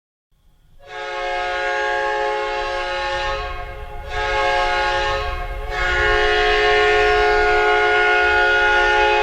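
Hockey goal horn sounding three blasts, a long one, a short one, then a long held one, each a steady chord of several tones like a train air horn.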